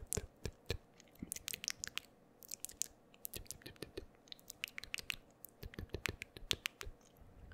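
Close-miked wet mouth clicks: an irregular run of sharp little ticks, several a second, thinning out and picking up again.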